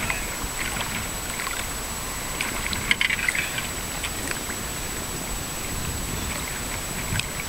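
Lake water lapping and trickling against a small boat's hull, with a short burst of crackling ticks about three seconds in and a faint steady high-pitched whine underneath.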